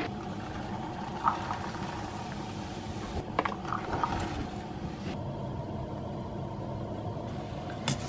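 Steady mechanical hum of a running appliance, with a few light clicks and clinks about a third to halfway through.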